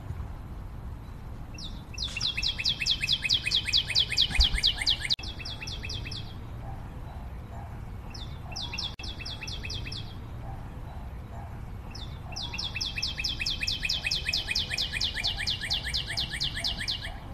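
Songbird song: three fast trills of rapidly repeated high notes, about ten a second, each opened by a short single note. They come about two seconds in, about eight seconds in, and about twelve seconds in, the first and last lasting several seconds, over a low steady background rumble.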